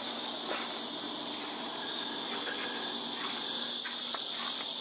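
A steady, high-pitched chorus of insects chirring in the grass, with a few faint clicks.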